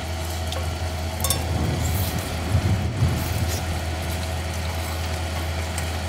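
Food sizzling on a griddle over an induction cooktop, with a few light clicks, over a steady low hum.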